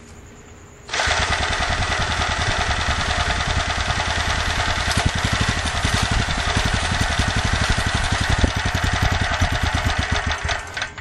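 Small portable generator engine, fed HHO gas at the carburetor spacer, starting abruptly about a second in and running with a fast, even firing beat for about ten seconds, then cutting out near the end.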